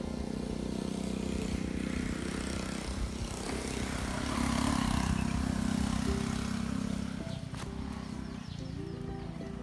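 A motor vehicle's engine running, growing to its loudest around the middle and fading about seven seconds in.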